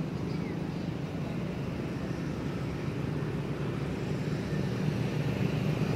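A steady low engine rumble from a motor vehicle, growing louder near the end, with one faint high chirp just after the start.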